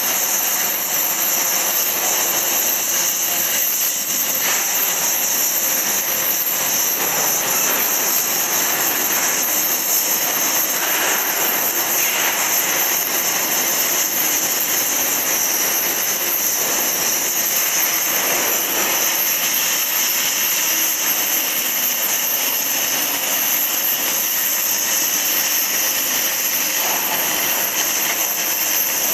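Oxy-fuel cutting torch cutting through 10 mm mild steel plate: a loud, steady hiss of the oxygen jet blowing molten metal and slag out through the kerf.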